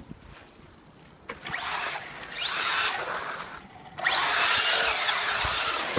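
Remote-control truck's motor whining in two throttle bursts, the pitch climbing as it speeds up; the second, longer burst starts about four seconds in.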